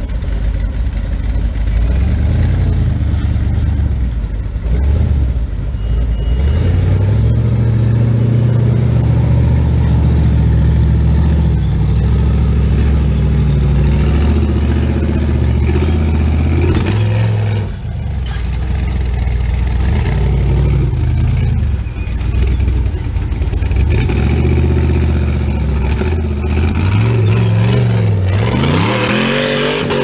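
Rock buggy's engine running and revving hard as it crawls up a rock ledge. Near the end comes a sharp rising rev, with the spinning tyres throwing dirt.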